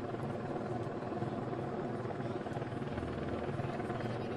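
Steady helicopter engine and rotor noise carried over a radio channel, as from an open microphone in an aircraft.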